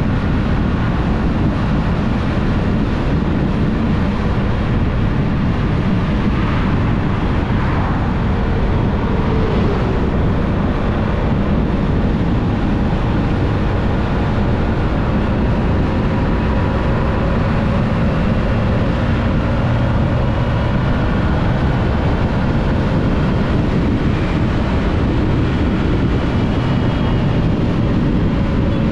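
Motorbike engine running while riding along at a steady pace, with a faint whine that drifts slowly in pitch. Wind rushes over the helmet- or bike-mounted microphone throughout.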